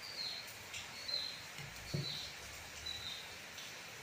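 A small bird chirping over and over: short, high, slightly falling chirps less than a second apart. A dull knock about two seconds in.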